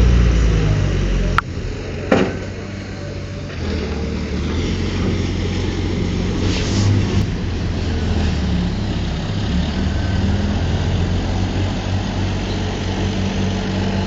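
Diesel engine of heavy earthmoving machinery running under load, a steady low drone, with two sharp knocks in the first couple of seconds.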